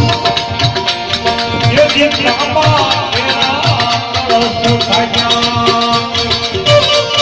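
Music with a steady beat: a melody line held and sliding in pitch over low drum strokes about twice a second and a shaker-like rattle.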